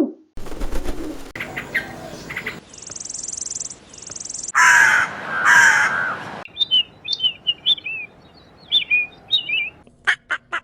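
A run of recorded bird and animal calls played one after another: two loud harsh calls about halfway through, then a quick series of short, high chirps.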